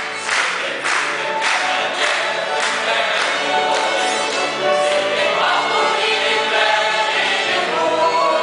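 A mixed choir of men and women singing in harmony, with a steady rhythmic pulse through the first half, then held chords.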